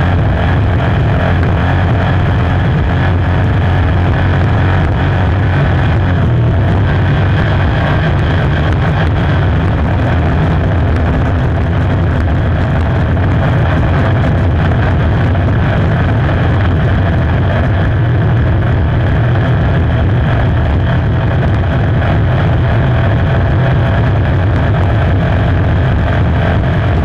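APBA 5-litre inboard racing hydroplane's V8 engine running loud and steady at a constant pace, heard from the open cockpit, with no rise or fall in revs.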